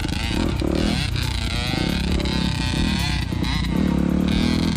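Dirt bike engine revving and easing off as it is ridden, its pitch rising and falling.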